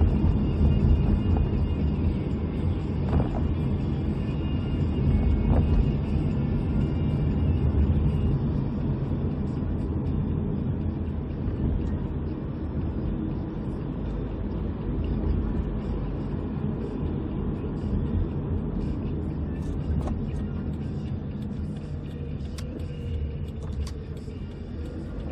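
Steady low rumble of a car driving, heard from inside the cabin, with a few scattered clicks.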